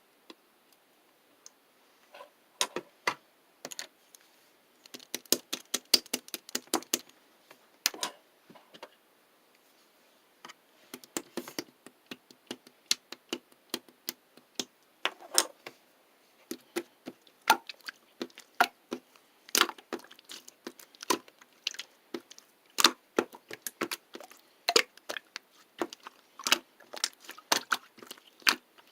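A series of sharp, irregular clicks and taps, coming in quick clusters with short pauses between.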